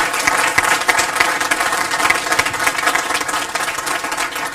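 Audience applauding: many hands clapping together in a dense, steady patter that is louder than the speech around it.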